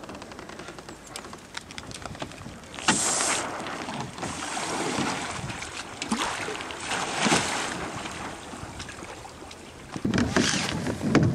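Water splashing and sloshing around an OpenBic dinghy being launched from its trolley, with wind on the microphone, rising in several louder swells, the loudest about three seconds in and near the end.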